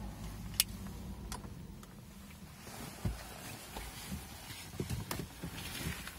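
A few sharp clicks, soft knocks and rustling as a person shifts in the driver's seat of a parked car with its engine off, getting ready to step out.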